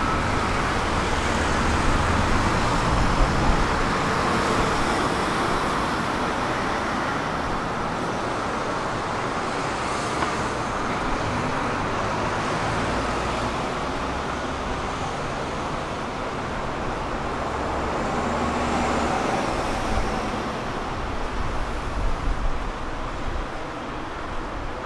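City road traffic running steadily, a continuous wash of passing vehicles.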